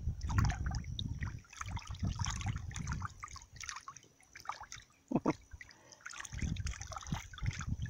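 Fish scraps tipped off a board splash into shallow river water, followed by irregular small splashes and plops of mojarras feeding at the surface, with one sharper plop about five seconds in.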